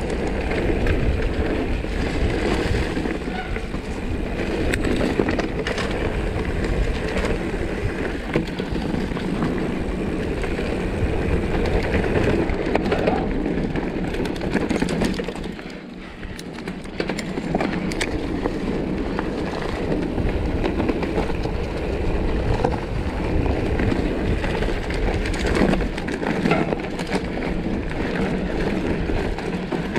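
Mountain bike being ridden over a rough dirt trail: the tyres rumble over the ground while the bike clatters and rattles over bumps. There is a brief lull about halfway through.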